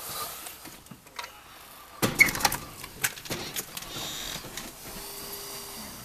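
A storm door being pushed open, with a burst of clicks and clatter about two seconds in, then a steady hiss.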